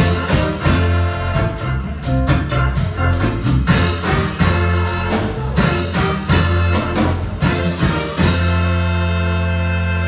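Live band with horns, keyboard and guitar playing an upbeat number with a driving drum beat. About eight seconds in the drums stop and the band holds one long chord.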